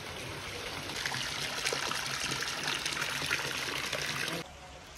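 Water trickling and splashing in a spring-fed stone water tank (bowli), growing louder about a second in and dropping off suddenly near the end.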